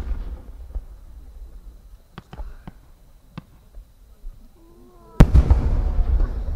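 A 10-gou (30 cm) aerial firework shell bursting about five seconds in: one sudden loud boom followed by a long low rumbling echo. Before it there is a low rumble at the start and a few faint sharp pops.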